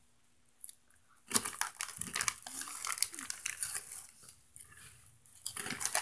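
A Hot Cheetos bag crinkling and the chips crunching as they are eaten, in spells of dense crackle starting just over a second in and again near the end.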